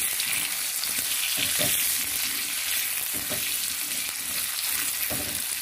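Potato chunks sizzling steadily as they fry in hot oil in a kadai, with a silicone spatula now and then scraping the pan as it turns them.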